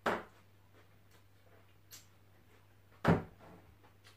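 Two short knocks about three seconds apart, the second louder and deeper, with a few faint clicks between.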